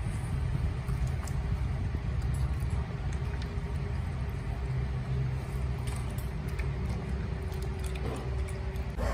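A dog eating wet food from a steel bowl, with faint chewing and small scattered clicks, over a steady low rumble.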